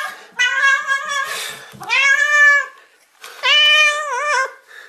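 Domestic cat meowing loudly several times, long drawn-out meows, the last one wavering in pitch near its end.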